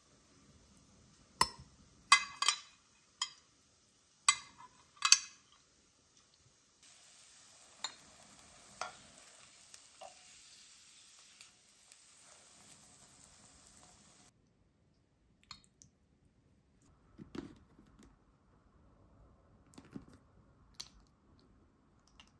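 Kitchenware clinking and clattering: a quick run of sharp, ringing clinks of utensils against dishes or pots in the first five seconds, then softer, scattered knocks.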